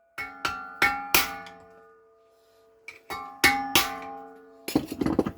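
Hammer blows on a steel repair panel clamped in a vise, banging in a crease, each blow ringing out metallically: four blows, a pause, then three more. A short, rougher clattering rattle comes near the end.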